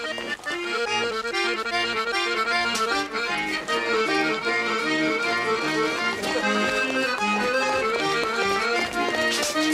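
Accordion playing a dance tune: a melody of short notes over a steady, repeating bass-and-chord accompaniment.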